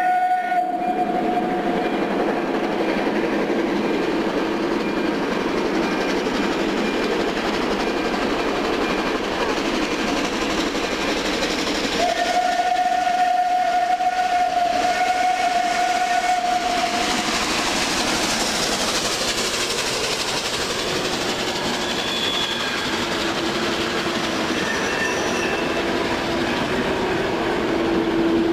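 Steam locomotive at the head of a train approaching and passing. Its whistle ends a long blast about a second in and sounds another steady blast of about five seconds near the middle. The running noise of the engine and its wheels on the rails swells as it goes by close, about two-thirds through.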